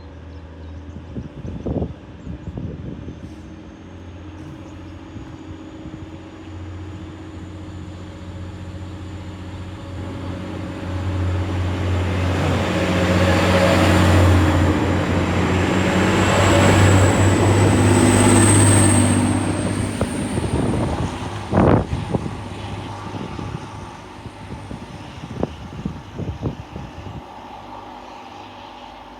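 A TransPennine Express class 185 diesel multiple unit goes by, its diesel engines running with a steady low hum. The sound swells to its loudest around the middle and then fades, with a thin high whine rising slowly in pitch and a sharp knock soon after the peak.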